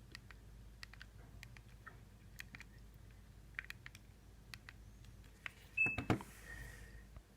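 Faint scattered clicks from a Nokia 2310's keypad buttons being pressed, with one short high key beep near the end followed by a couple of louder thuds from the phone being handled.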